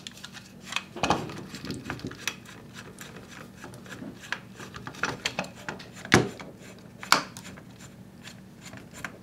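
Allen-key driver unscrewing the pistol-grip screw of an airsoft M4-style lower receiver: light rubbing and clicking of the tool in the screw, with scattered knocks of the receiver and stock being handled on a table, the sharpest about a second in and again around six and seven seconds in.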